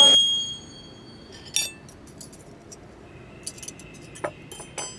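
Small brass hand bell's ring dying away over the first half-second, then a few light metallic clinks.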